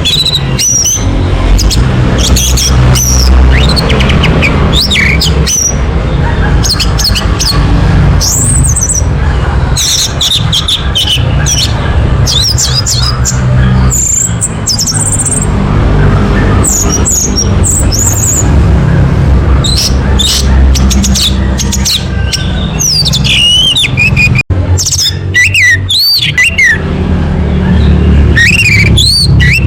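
Orange-headed thrush singing a long run of short whistled phrases that rise and fall, over a steady low rumble.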